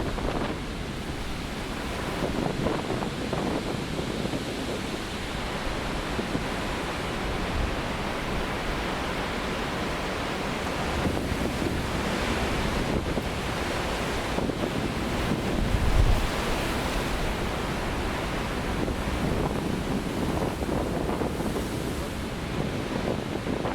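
Big winter storm surf breaking and washing in a steady roar, with wind buffeting the microphone; a louder low surge peaks about two-thirds of the way through.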